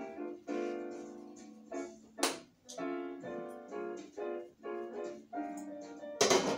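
Background piano music, a slow run of chords that each ring and fade. A sharp knock cuts in about two seconds in and another near the end.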